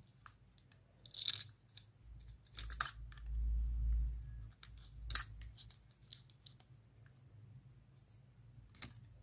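Utility-knife blade prying apart the snap-fit plastic case of a small Bluetooth audio receiver: several sharp clicks and crunches as the case's clips give, with a low rumble of handling in between.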